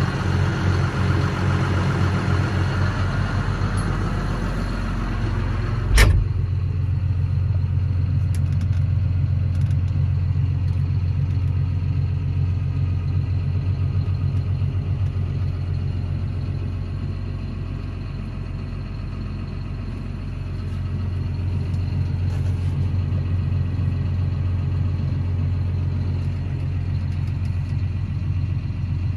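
John Deere 7215R tractor's six-cylinder diesel idling steadily, heard from inside the cab. A single sharp thump sounds about six seconds in, after which the engine sound is duller.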